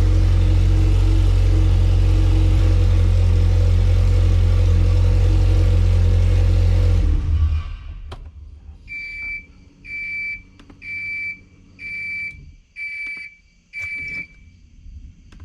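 Honda B18 four-cylinder engine idling loud and steady on an open header, shut off abruptly about seven seconds in. A second later six short, high electronic beeps sound at even intervals, with a few faint clicks.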